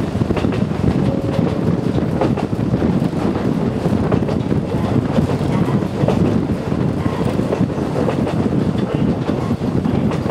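Konan Railway Owani Line train running along the track: a steady low rumble of wheels on rails, with occasional clicks from the rail joints.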